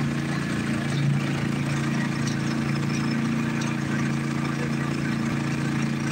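Suzuki 140 outboard motor running steadily at low speed, an even engine drone.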